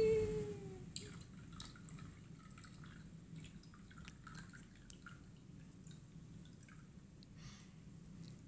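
Carbonated cola poured slowly from a can into a plastic cup of berry sugar powder: faint dripping with scattered small pops.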